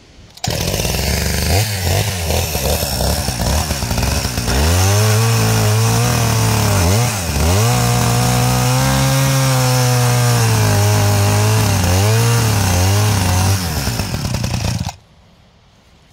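Two-stroke chainsaw cutting through a stump. It starts abruptly and runs unevenly for a few seconds, then is held at high revs through the cut, dipping briefly twice partway through, before stopping abruptly near the end.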